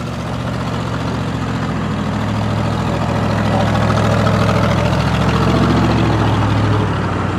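Land Rover Discovery's engine running at low revs as it crawls up a dirt track, getting louder as it comes close and passes, then easing off slightly near the end.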